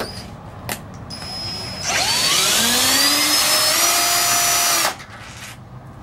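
Power drill-driver unscrewing the lock barrel's retaining screw from the edge of a composite door. The motor whine rises in pitch as it speeds up, holds for about three seconds and stops abruptly.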